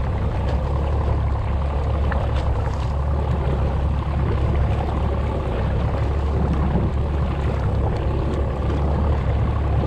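Boat motor running with a steady low rumble, with wind and water noise over it.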